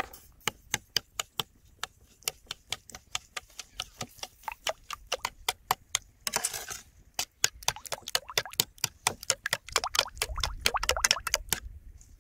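Metal spoon clicking against a ceramic plate while stirring a sauce, a quick run of clicks about four a second, with two stretches of scraping as the sauce is smeared around the plate.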